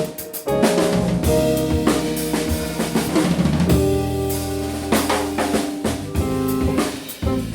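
A small jazz band playing, with the drum kit to the fore: snare and bass drum hits and rimshots over held chords from the other instruments.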